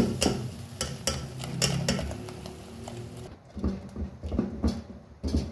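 Spatula scraping and tapping around an aluminium saucepan as thickening white sauce is stirred fast to keep lumps from forming, a quick run of scrapes and knocks a few times a second.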